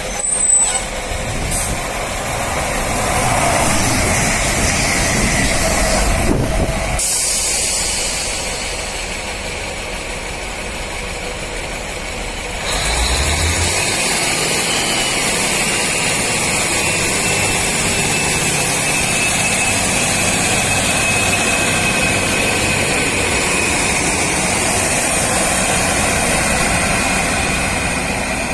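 Class 155 Super Sprinter diesel multiple unit's engines running at the platform, then, about halfway through, opening up as the train pulls away, with a high whine that slowly falls in pitch.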